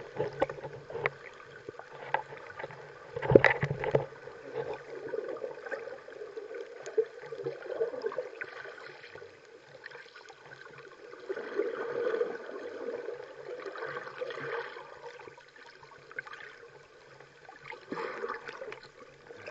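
Muffled water sloshing and gurgling heard through a submerged action camera's housing, swelling and fading irregularly, with a sharp bump about three and a half seconds in.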